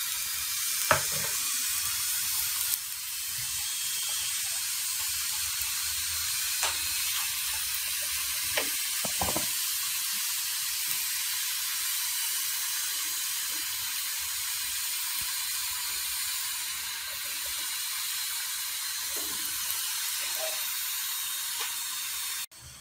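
Oil sizzling under a paratha shallow-frying on a tawa: a steady hiss with a few small pops and crackles, which drops away suddenly near the end.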